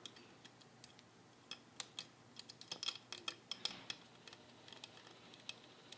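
Faint, irregular clicks and ticks of small metal sewing-machine parts being handled as a screw is picked up and fitted to the bobbin winder, thickest through the middle.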